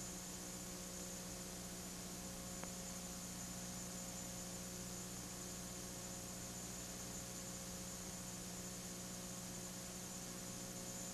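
Faint steady electrical hum under a low hiss, with no other sound but one faint tick about two and a half seconds in.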